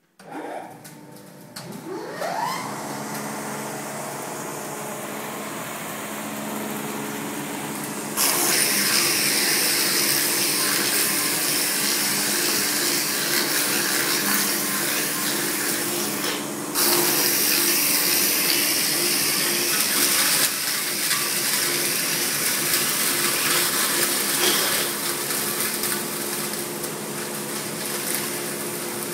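A round-stick machine for broom and shovel handles is running. Its motor comes up to speed with a rising whine in the first seconds and then hums steadily. From about eight seconds in, a loud, steady rushing noise of the rotary cutter head turning a square wooden blank round joins it, broken once briefly about two-thirds of the way through.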